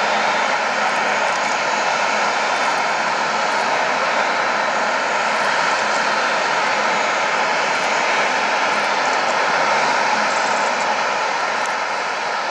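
Airbus A380's four jet engines running at taxi power: a steady rushing noise with a faint whine held on one note.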